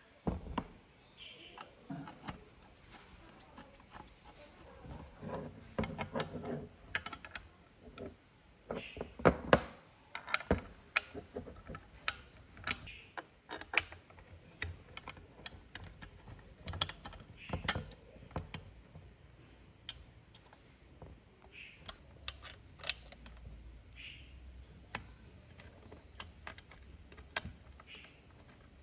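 Small screws, a plastic mounting plate and a bracket being handled and fitted onto a telescope tube by hand: irregular clicks and taps, the loudest cluster about nine to ten seconds in.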